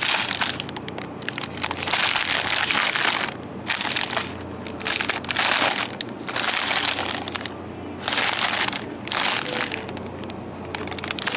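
Plastic-and-paper wrappers of packaged sandwiches and burgers crinkling and rustling as gloved hands pull them off a shelf and turn them over, in repeated bursts of a second or so with short pauses between.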